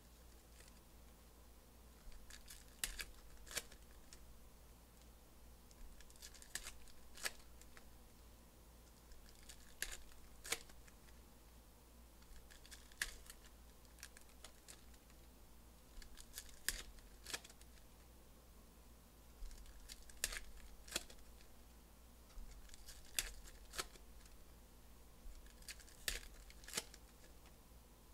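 Foil trading-card pack wrappers being torn open and crinkled by hand, in short sharp crackles that come in pairs or threes every three seconds or so, over a faint low hum.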